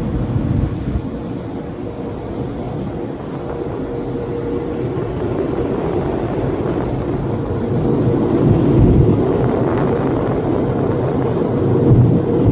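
Automatic car wash equipment heard from inside the car cabin: a steady rushing noise with a low hum that fades out about five seconds in, growing louder about eight seconds in.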